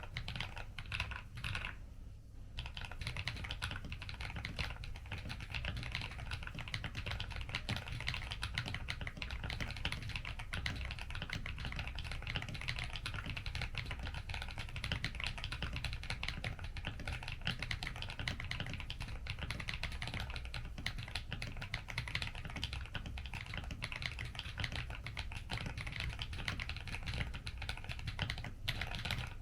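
Continuous fast typing on a Weikav WK75 Pro custom mechanical keyboard with Akko Cream Blue tactile switches: a dense run of keystroke clacks, broken by a few brief pauses in the first couple of seconds.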